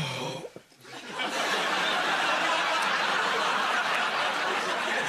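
Studio audience laughing, swelling in about a second in and holding steady as a dense crowd laugh.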